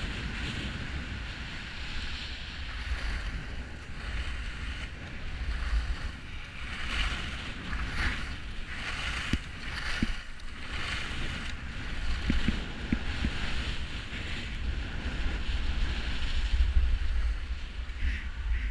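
Skis hissing and scraping over packed, groomed snow on a downhill run, the scraping swelling and fading over and over, with a steady rumble of wind on the microphone underneath.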